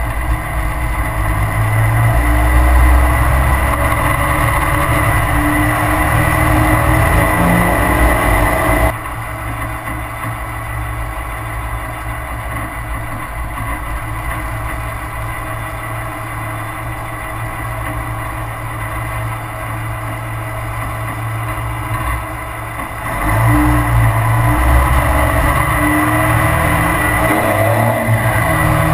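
Straight-piped 2002 Cummins turbo diesel in a Dodge Ram pulling hard under acceleration, rising in pitch through the gears, tuned to over-fuel and blow black smoke. About nine seconds in it drops abruptly to a quieter, steadier run, and from about 23 seconds it pulls hard and loud again.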